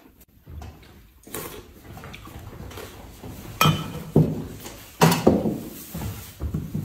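Ceramic plates and a bowl set down on a cloth-covered table: a few sharp knocks from about three and a half to five and a half seconds in, with light rustling and clinks around them.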